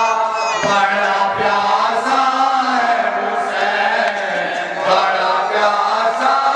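A man chanting a noha, a Shia lament for Husain, in long held melodic lines that glide up and down.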